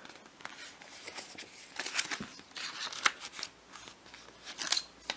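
Pages of a softcover comic book being turned by hand: soft paper rustling with small flicks and clicks, busiest about two to three seconds in.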